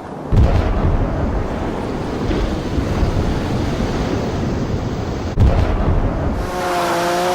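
Staged submarine water-hammer scene: heavy booms and a steady rushing roar like water bursting in. A big boom comes just after the start and another a little past five seconds. About six and a half seconds in, a steady tone at several pitches sets in over the roar.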